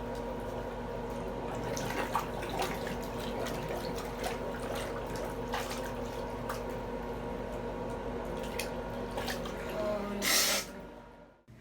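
Tap water running into a sink with scattered splashes as blood is rinsed from a wounded arm; a louder splash about ten seconds in, then the water sound cuts off near the end.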